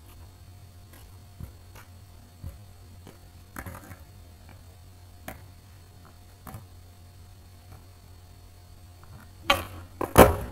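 Skateboard popping off asphalt for a varial kickflip near the end: a sharp crack of the tail, then the board slamming back down onto the pavement under the skater less than a second later. Before it, a few light taps and scuffs of the board.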